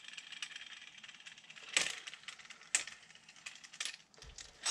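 Small metal clicks and rattles as a threaded bearing press is unscrewed and taken off a bicycle front hub, with a few louder clinks near two, three and four seconds in.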